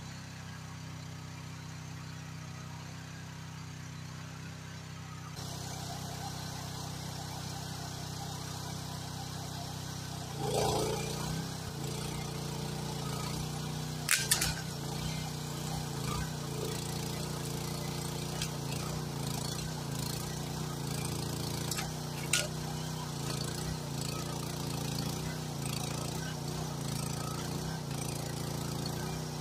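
Groundhog KH14G mini excavator's engine running steadily under work as its arm and grapple pull through brush, with two sharp cracks partway through.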